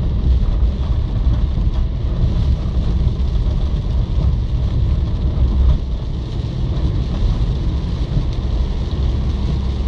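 A car driving through heavy rain: a steady low rumble of road and engine noise with the hiss of rain over it.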